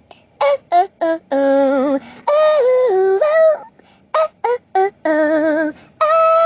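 Ringtone tune made of short, choppy voice-like notes with a wavering pitch, leaping between low and high notes and cutting off abruptly between phrases.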